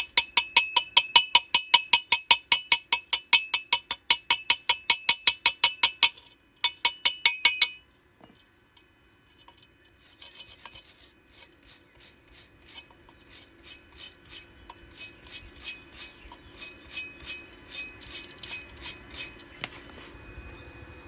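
Rapid metal-on-metal strikes on steel pipe, about five a second, each ringing briefly. They stop about 8 seconds in, and quieter, lighter taps resume about two seconds later before dying away near the end.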